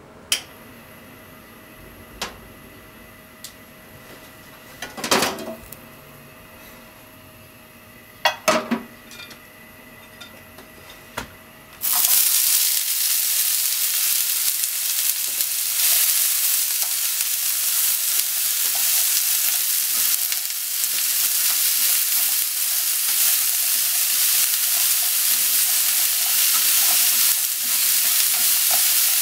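A few sharp clicks and knocks over a quiet background, then, about twelve seconds in, sliced onion and kakinoki mushrooms go into hot oil in a frying pan and start sizzling loudly. The frying goes on steadily as they are stirred with chopsticks.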